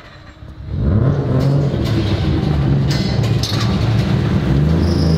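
Mazda RX-7's street-ported rotary engine idling with an uneven, wavering beat, running untuned on its first run. It comes in loud after a brief quiet moment, with a few metal rattles from the roll-up shop door being raised.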